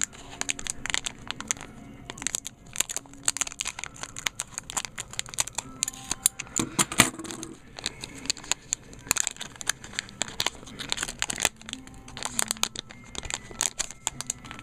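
Plastic trading-card pack wrappers crinkling and being torn and cut open, with many irregular sharp crackles.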